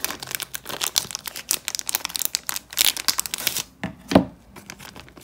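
Clear plastic wrapper of a sports-card pack crinkling and rustling as it is opened, then a single sharp knock about four seconds in.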